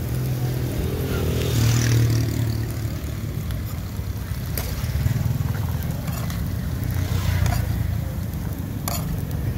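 Street traffic with motorbikes running and passing, a low rumble that swells and fades a few times, with a few clinks of a metal spoon scraping a metal pan as stir-fried corn is scooped into a foam tray.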